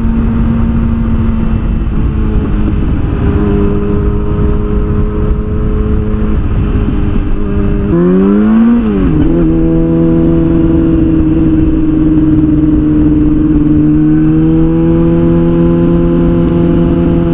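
2003 Yamaha R6's 600cc inline-four motorcycle engine running at steady revs under a rush of wind noise. About eight seconds in it revs up briefly, then drops to a lower steady note as it shifts up and holds there.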